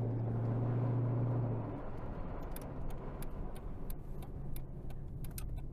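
Car heard from inside the cabin while driving: a steady low engine drone for the first couple of seconds, then quieter road noise with scattered light clicks and ticks.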